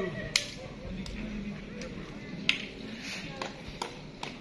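A few sharp smacks of a volleyball being struck during a rally, spaced irregularly with three coming close together near the end, over a low murmur of voices.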